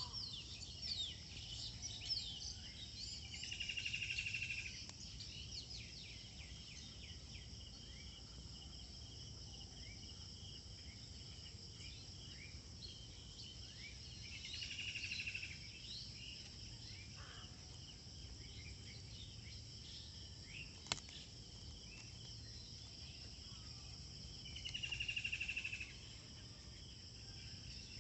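Insects keep up a steady high drone while birds chirp, many times in the first few seconds and now and then after. A louder buzzing trill comes three times, roughly every ten seconds, each lasting about two seconds, and there is one sharp click about two-thirds of the way through.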